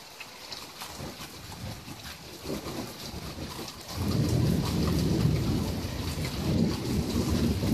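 Heavy typhoon rain hissing and pattering with scattered drop clicks. About halfway through, a loud low rumble comes in suddenly and keeps going.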